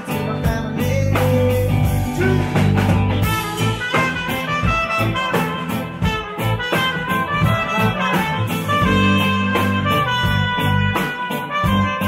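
Live band playing: a trumpet solo line of held notes over electric guitar, electric bass and a drum kit keeping a steady beat.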